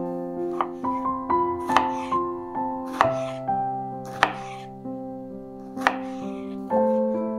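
A knife chopping food on a cutting board: a handful of sharp, irregularly spaced knocks over gentle piano background music.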